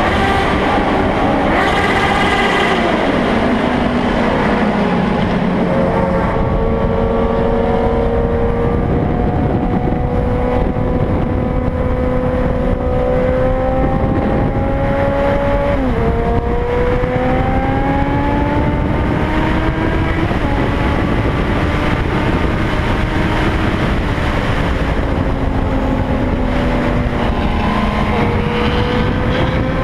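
A vehicle's motor running under a continuous rumble, its pitch climbing slowly, dropping sharply about sixteen seconds in, then climbing again.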